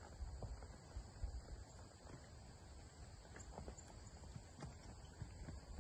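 Faint hoofbeats of a saddled horse walking over soft dirt and tree roots, heard as dull, irregular thuds.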